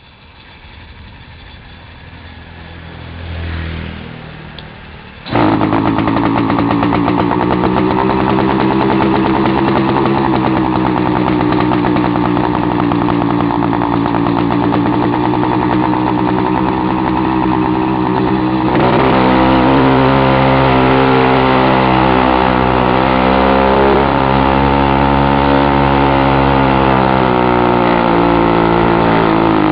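A Chinese "China girl" two-stroke bicycle engine kit runs very loud with its muffler cap removed, pulling a motorized bicycle up a steep climb; its note wavers up and down with the load. The sound starts much quieter and jumps to full loudness about five seconds in.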